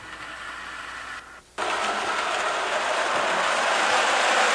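A toy electric train running along a shelf track close by, its motor and wheels making a steady mechanical running noise. The noise starts abruptly after a brief drop-out about a second and a half in, then grows louder toward the end.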